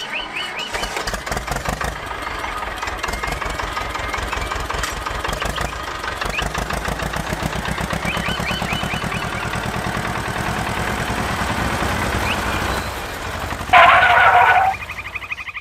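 Tractor engine running with a fast, even chug as the blue toy tractor drives across the sand. About a second before the end, a loud pitched blast lasting roughly a second cuts across it.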